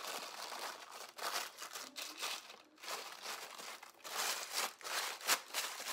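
Plastic cling wrap crinkling in irregular bursts as hands press and smooth it down over a bowl to seal it, with a few sharp crackles.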